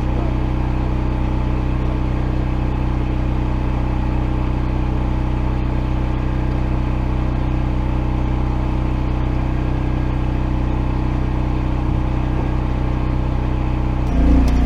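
Gasoline engine of a Hobart Champion 145 engine-driven welder/generator running at a steady speed. Near the end it gets louder and picks up speed.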